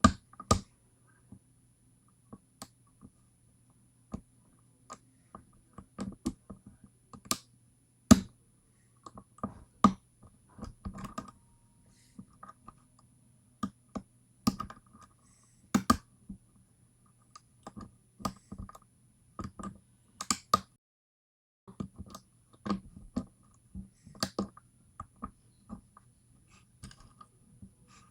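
Lock pick and tension wrench clicking and ticking irregularly against the pins of a 5-pin pin-tumbler lock as it is picked.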